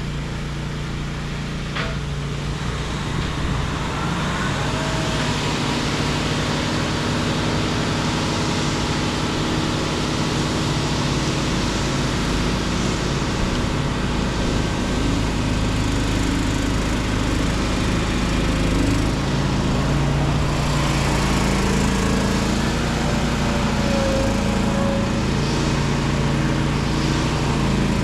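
An engine running steadily, its note shifting in pitch a few times.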